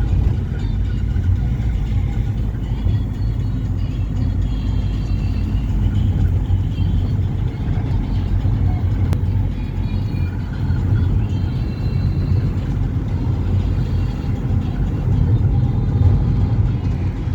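Steady low rumble of a moving road vehicle, with faint music over it.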